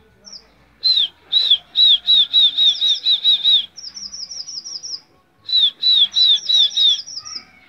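Male red avadavat (strawberry finch) singing: two runs of clear, high whistled notes, each sliding downward, about four or five a second, each run ending in a quicker string of higher notes.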